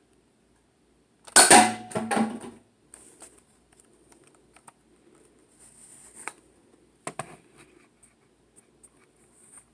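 Hard plastic clicking and clattering from a Nerf blaster and its clip being handled: one loud rattling clack about a second in, then scattered light clicks and rustling.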